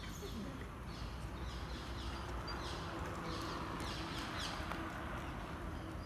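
Birds chirping: a run of quick, high, falling notes through the middle, over a steady hum of outdoor background noise.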